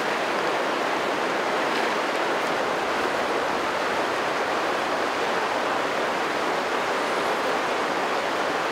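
A fast river rushing steadily over rocks.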